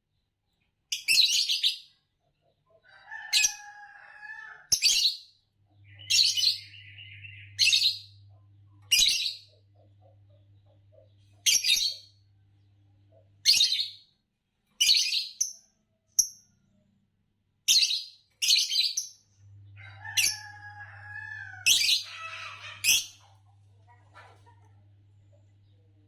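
Green Fischer's lovebirds giving loud, sharp, high chirps, one every second or two, with a couple of lower, wavering calls and a short chattering stretch in between. A faint steady low hum sits under parts of it.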